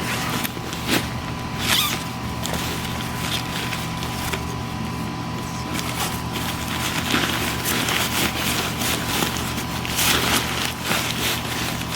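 Rustling and handling of a pop-up tent's packaging and carry bag: irregular scrapes and clicks over a steady low hum.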